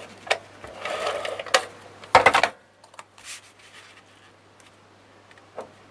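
Craft-table handling of a Scotch adhesive tape gun and chipboard panels. There are two short rasping strokes and a few sharp clicks, then a louder clatter about two seconds in. After that come quiet paper-sliding sounds and small taps.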